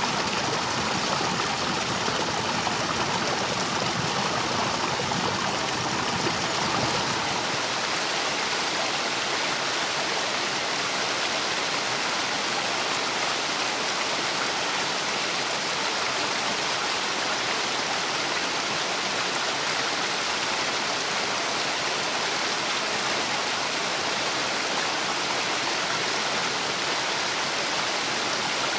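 Steady rush of high floodwater pouring over a river weir, an even roar of whitewater. The deeper rumble thins out about a quarter of the way in, leaving a lighter hiss.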